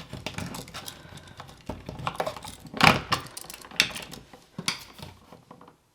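Irregular plastic clicks and knocks as a wired GFCI outlet and its wires are pushed back into the electrical box, with the sharpest knock about three seconds in.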